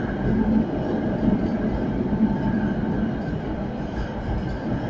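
Tram in motion, heard from inside the passenger car: a steady rumble of the wheels on the rails.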